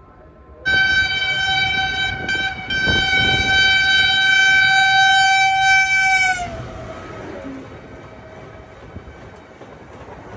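Diesel locomotive horn sounding one long, steady blast of about five and a half seconds, its pitch sagging as it cuts off. It is followed by the rumble and wheel clatter of the passenger train running past.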